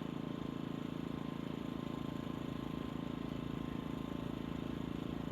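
A steady low mechanical hum at an even level, with a faint high tone above it.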